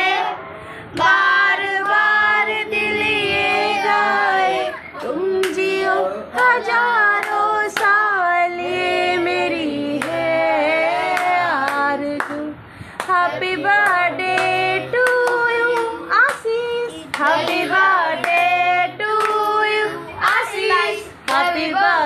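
Singing by a high voice, with hand claps scattered through it.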